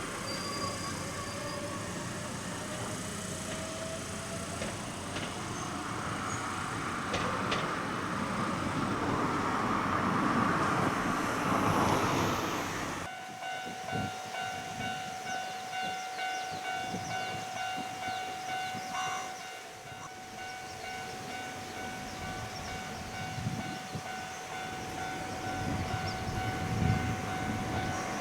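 Iga Railway train running at a level crossing, its wheel and rail noise building for about twelve seconds, then cutting off abruptly. After the cut a steady high tone sounds over quieter rumbling and clatter.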